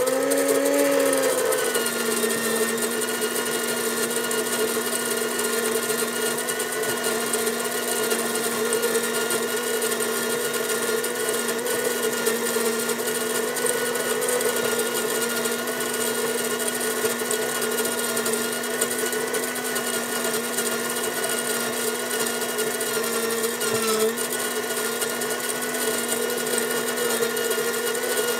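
Electric coffee bean grinder running steadily, its motor whining at a constant pitch over a rough grinding noise. The whine settles slightly lower in the first couple of seconds and dips briefly about 24 seconds in.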